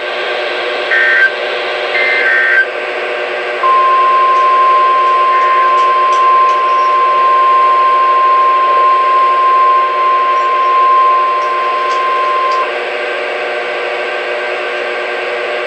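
NOAA Weather Radio Emergency Alert System broadcast. Three short bursts of warbling two-tone SAME digital data come first, then the 1050 Hz warning alarm tone holds steady for about nine seconds, heralding a flash flood warning. Radio static hiss runs underneath.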